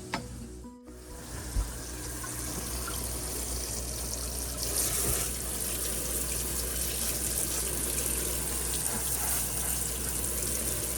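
Water running steadily from a kitchen tap, getting stronger about four seconds in, used for hot-water cleaning of the refrigerator. A brief knock comes about a second and a half in.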